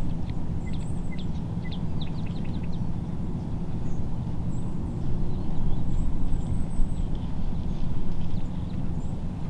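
A steady low rumble, with small birds chirping over it: a quick run of short chirps in the first two seconds, then a few thin, high calls.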